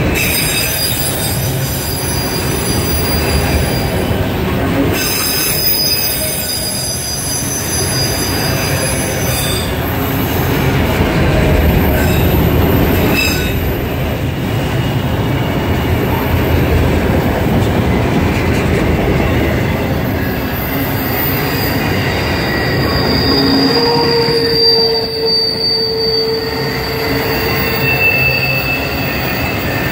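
Autorack freight cars rolling past: a steady, loud rumble of steel wheels on rail, with high-pitched wheel squeal that comes and goes, at times several squealing tones at once.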